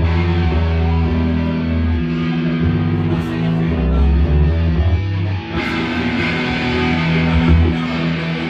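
Rock band rehearsing live: electric guitars and a bass playing loud, long held notes and chords, with a distorted edge. The sound grows brighter about halfway through.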